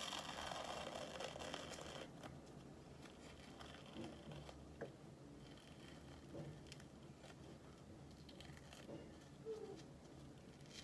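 Faint peeling of a dried black charcoal peel-off mask being pulled slowly off the face, a soft rustle for the first two seconds, then a few scattered small ticks.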